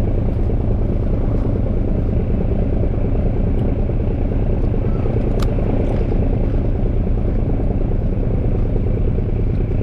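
Engine of a sightseeing boat running steadily, a low rumble with a rapid even pulse. There is a brief tick about five seconds in.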